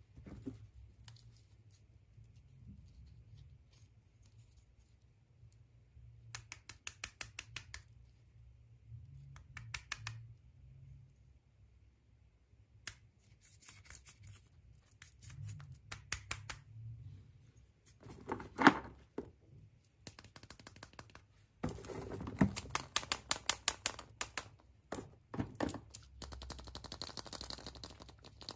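Packaging being opened by hand: several bursts of rapid crackling clicks, like plastic or tape being cut and pulled, with one louder knock about two-thirds of the way through.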